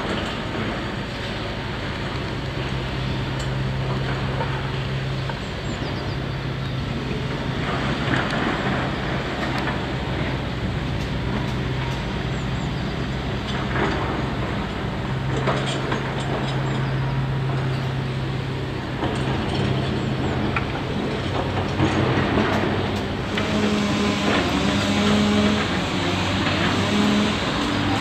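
Diesel engine of a working excavator running steadily at a constant low hum, with repeated metallic clanks and knocks from the machine.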